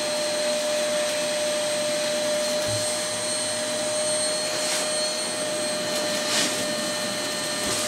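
Dirt Devil Power Reach multi-cyclonic bagless canister vacuum running steadily, its motor giving a constant whine over the hiss of air through the hose, as the wand is worked along the carpet edge. A few brief swells in the hiss come as the nozzle moves.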